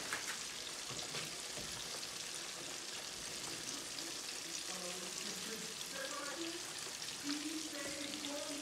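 Hot deep-frying oil sizzling steadily, with small crackles and pops.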